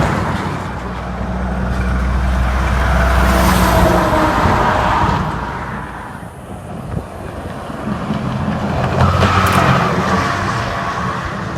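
Two trucks pass close by on a highway, one about three seconds in and another about nine seconds in. Each brings a low engine drone and a tyre whine that drops in pitch as it goes by.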